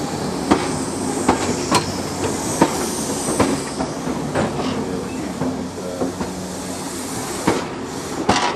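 Passenger coaches rolling past on the track, their wheels knocking over the rail joints about once a second, with a steady high hiss and rumble; a quick run of knocks near the end as the last coach goes by.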